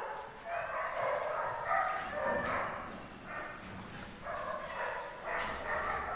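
Dogs barking and yipping, a string of short irregular calls.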